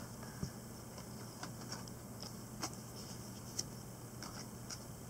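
Panini Contenders football trading cards being flipped through by hand: faint, irregular clicks and snaps of card edges, about seven in five seconds, over a low steady hum.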